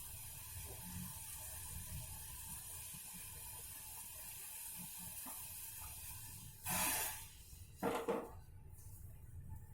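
Pot of water and spices boiling on a gas burner: a steady hiss over a low rumble. About seven seconds in come two short, loud rushing noises about a second apart, after which the high hiss drops away.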